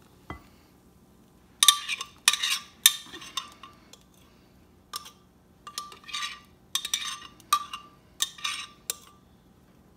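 Metal spoon scraping and clinking against the inside of a blender jar, scooping out the last of the blended flan batter: a run of short, sharp scrapes and taps with a slight ring, starting about a second and a half in and coming in quick clusters.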